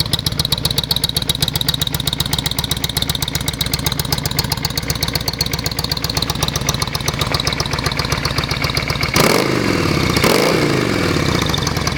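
Yamaha Virago 535's V-twin engine idling with a steady beat, then revved twice in quick blips about nine and ten seconds in, each falling back to idle.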